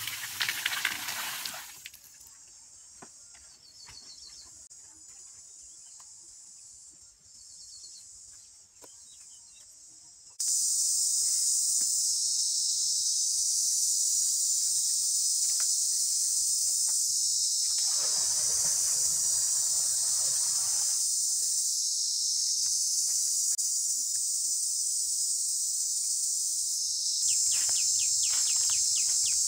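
Water poured from clay pots splashing into a mud-lined pool for the first second and a half. After that a faint high insect hiss, which jumps to a loud, steady, high insect chorus about ten seconds in, with a few seconds of broader rushing noise past the middle.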